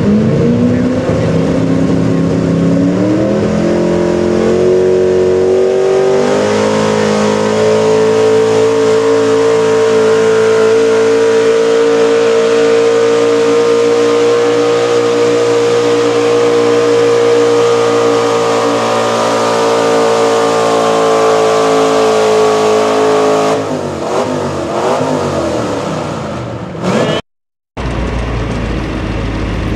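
Pickup truck engine pulling a weight-transfer sled under full load: the revs climb over the first six seconds, then hold steady at high rpm for about seventeen seconds. The engine note drops away about three-quarters of the way through as the throttle is let off, and the sound cuts out briefly near the end.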